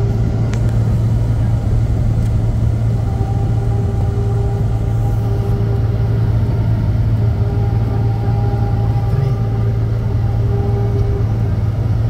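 Steady low hum and rumble of a car heard from inside its cabin as it creeps along in slow traffic, with a faint higher whine that comes and goes from about three seconds in.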